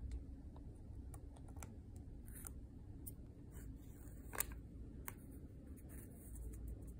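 Brass wax seal stamp being lifted from sealing wax and handled: scattered faint clicks and taps, with one sharper click about four seconds in.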